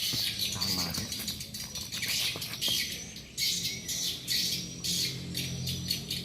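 Outdoor ambience of birds chirping and calling over a steady high insect hiss, with scattered small ticks and clicks.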